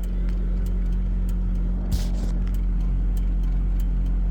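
A steady low mechanical hum, with faint ticks and a short clatter about two seconds in.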